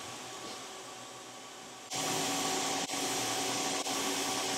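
Faint steady hum, then about two seconds in a louder steady machine whir with a few constant hum tones starts abruptly and runs on with brief breaks.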